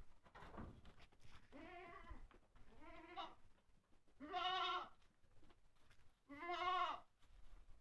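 Goats bleating: four separate calls, each rising and falling in pitch, the last two the loudest.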